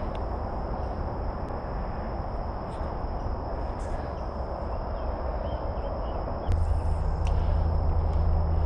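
A steady, high-pitched insect drone over a low rumble that becomes louder about six and a half seconds in, with a few faint clicks.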